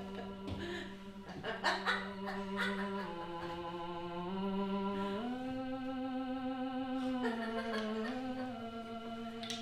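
A slow, wordless vocal melody of long held notes that steps to a new pitch every second or two and wavers slightly on its longest note, with a few faint knocks.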